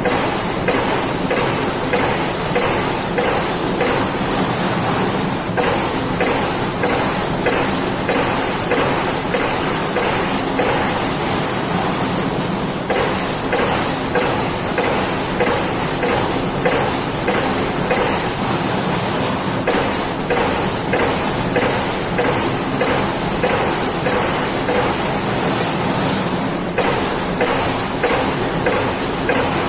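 CNC turret punch press (Amada Pega 357) punching sheet metal in a steady run of sharp strokes, about three a second, over the machine's continuous hum.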